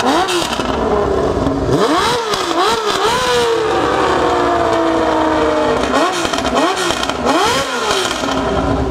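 Honda motorcycle fitted with six exhaust canisters being revved with the throttle blipped again and again. The engine note climbs and drops in quick bursts, settles back slowly for a couple of seconds, then is blipped twice more near the end.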